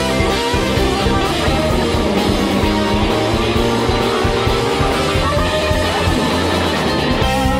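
Live rock band playing an instrumental jam: electric guitar over bass guitar and drums, continuous and loud.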